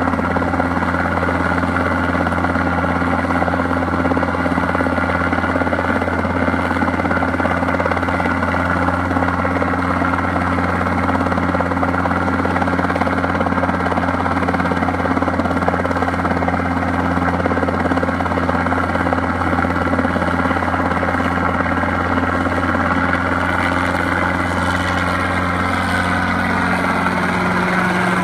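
Light helicopter hovering low overhead with its rotor beating and engine running steadily. In the last few seconds it moves away and the pitch falls a little.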